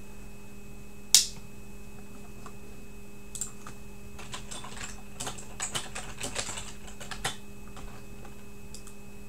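Typing on a computer keyboard: one sharp click about a second in, then a run of irregular key clicks from about three to seven seconds, over a steady electrical hum.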